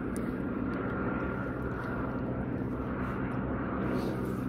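Aircraft flying low overhead: a steady engine drone.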